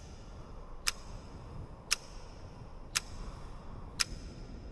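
A clock ticking about once a second, four sharp ticks, over a low rumble of wind.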